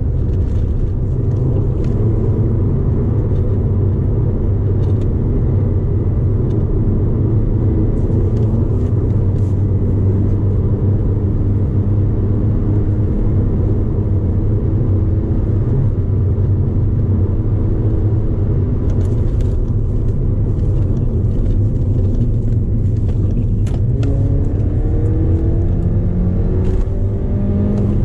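Mini R56's four-cylinder engine with a decatted exhaust, heard from inside the car's footwell while driving, with steady road and tyre noise. Near the end the engine note climbs as the car accelerates.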